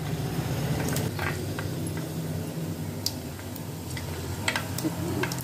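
Fennel and fenugreek seeds frying in hot oil in a clay pot, giving scattered faint pops and ticks over a steady low hum.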